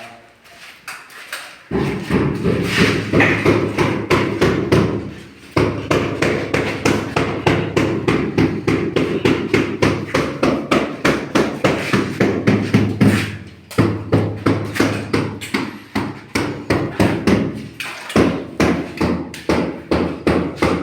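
Steady, rapid hammering, about three blows a second, with two short breaks, one early and one about two-thirds of the way through.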